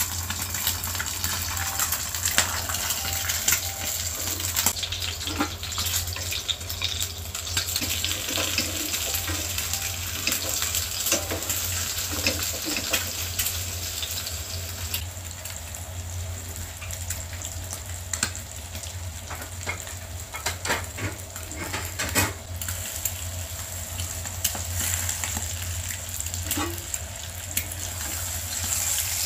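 Eggs frying in hot oil in a nonstick pan, sizzling and crackling, with a metal spoon and spatula scraping and clicking against the pan as the eggs are turned.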